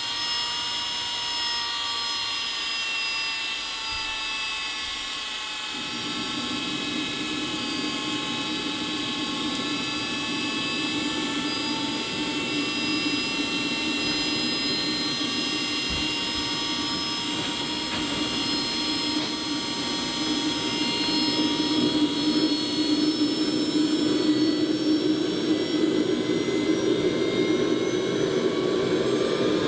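RC model turbojet engine (about 70 lb thrust) starting up: a high-pitched turbine whine with a lower rushing noise coming in about six seconds in. The rushing gets louder after about twenty seconds and the whine starts to rise in pitch near the end as the engine begins to light and spool up.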